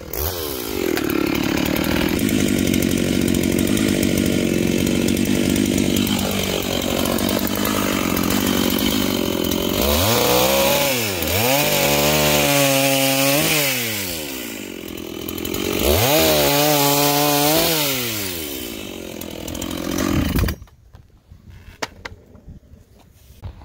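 Dolmar two-stroke chainsaw running at full throttle, then revved down and back up three times, then stopping abruptly near the end.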